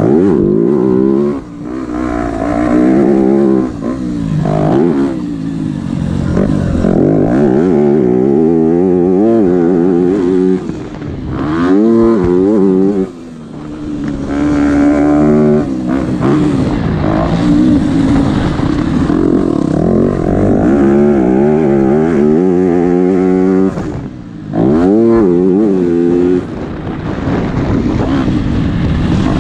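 Dirt bike engine being ridden hard, its pitch climbing again and again as the throttle opens and dropping back when it closes, with several brief dips in loudness.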